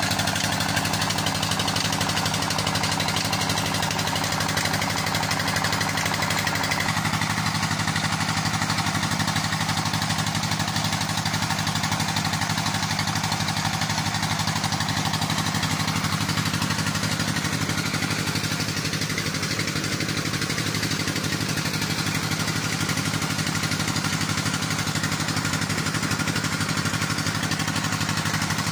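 Stationary 25 HP diesel engine running steadily, driving a belt-driven tubewell water pump, with water gushing from the outlet pipe into the tank.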